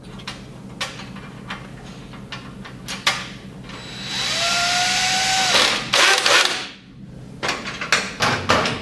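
DeWalt cordless drill driver running for about a second and a half about four seconds in, its motor whine rising slightly as it drives a screw into a metal cabinet-door latch. Light clicks of the latch hardware being handled come before the drill runs, and sharp clicks and knocks come after it.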